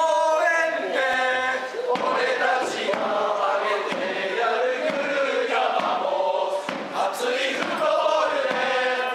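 Football supporters chanting a team chant together in unison, a sung melodic line repeated with the words ending on "VAMOS".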